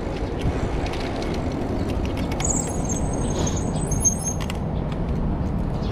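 Bicycle tyres rolling over brick pavers, with wind on a handlebar-mounted action camera, a steady rumble. A thin high squeal comes in for about two seconds midway.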